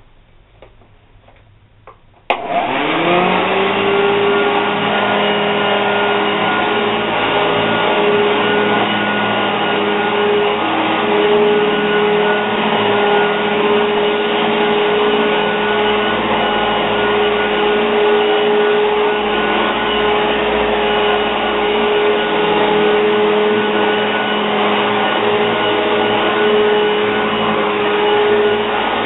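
Hoover Junior upright vacuum cleaner switched on about two seconds in: its motor spins up with a rising whine, then runs steadily with a constant hum and rush of air.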